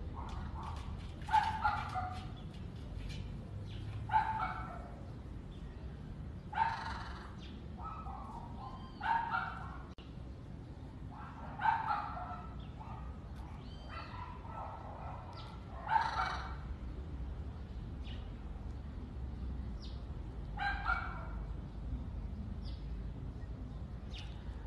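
Short animal calls, singly or in quick pairs, repeated every two to five seconds over a steady low background noise.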